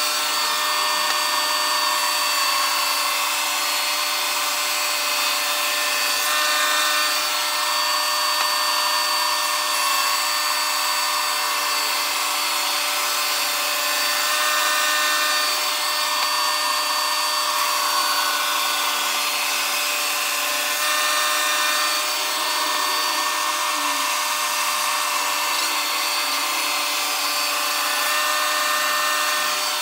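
Wood King FB 20 band sawmill running steadily, its band blade cutting lengthwise through a timber log: a constant whine of steady tones over a sawing hiss.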